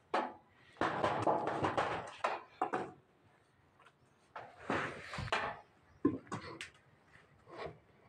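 Metal parts and tools clattering, knocking and scraping against a sheet-metal floor as a hydraulic control valve block is taken apart by hand. A dense run of clatter comes in the first few seconds, a scrape about the middle, and a few separate knocks near the end.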